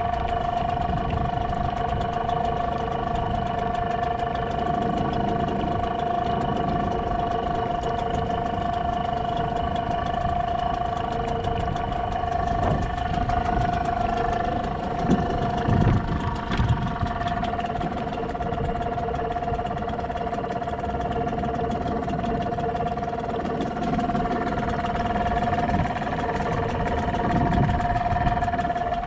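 Small boat's engine idling steadily, a constant even-pitched hum, over a low rumble of wind and water.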